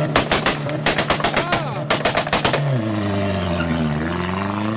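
A modified car's exhaust cracking out two rapid volleys of loud pops and bangs, each about a second long, as the engine is revved: unburnt fuel igniting in the exhaust and throwing flames. Afterwards the engine note falls and rises again with no pops.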